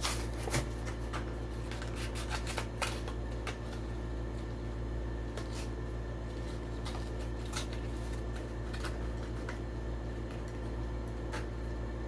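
A Hot Wheels blister pack being opened by hand: the plastic blister and cardboard card crinkle, crack and tear in scattered clicks and rustles, over a steady low hum.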